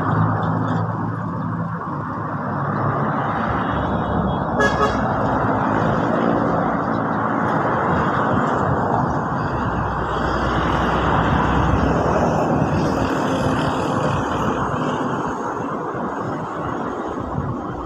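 Motor vehicle running, with a short horn toot about four and a half seconds in.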